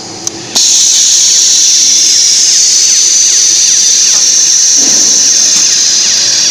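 A switch clicks in the control cabinet, and a fraction of a second later the LT-HS100E2 unit's motor starts at once, running with a loud, steady, high-pitched hissing whine.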